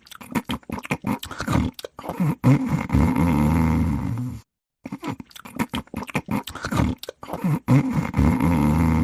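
A dog snoring in a repeating cycle: a rapid, fluttering snore, then a longer, deeper, steadier one. A short silent break comes about halfway through, and then the same pair repeats.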